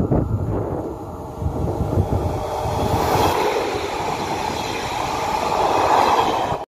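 Double-deck SNCF electric regional train passing close by at speed: a rushing noise of wheels on rail and moving air that builds and is loudest as the rear cab goes by, then cuts off suddenly near the end.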